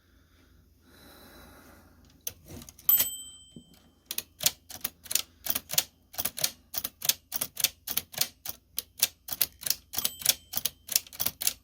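Remington Portable No. 2 manual typewriter being test-typed. After a faint rustle there is a sharp strike with a short metallic ring about three seconds in, then a steady run of keystrokes at about three a second. The machine is working again after an adjustment to its ribbon mechanism.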